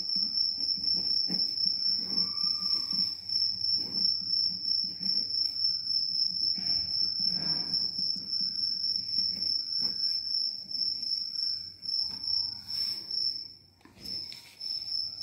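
Insect trilling steadily at one high pitch, dropping out for a moment near the end. Faint scratching of a ballpoint pen writing on paper lies underneath.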